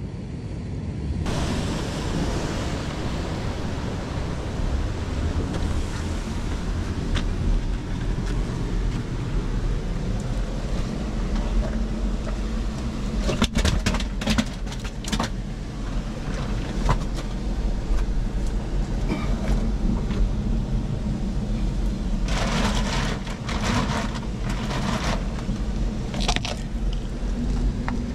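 Steady rumbling noise of wind and sea surf. Clusters of scrapes and knocks from boots and hands clambering over rock come about halfway through and again a few seconds before the end.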